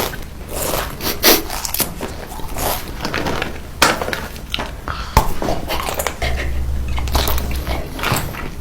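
Close-miked eating: irregular crunching bites and chewing of crisp food, with sharp clicky crunches scattered throughout.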